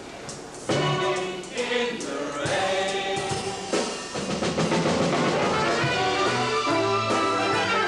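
A musical-theatre chorus singing with orchestral accompaniment that includes brass, with strong entries about a second in and again shortly after, then a fuller sustained passage.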